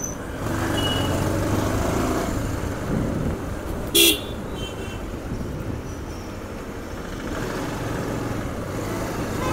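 Bajaj Pulsar 150 motorcycle running at low speed in town traffic, a steady engine and road rumble, with one short, loud vehicle-horn beep about four seconds in.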